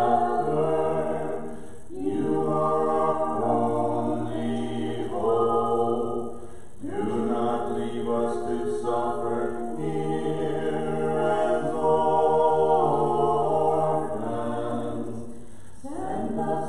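Church choir singing Orthodox liturgical chant a cappella, in phrases a few seconds long with short pauses between them, while low voices hold long notes underneath.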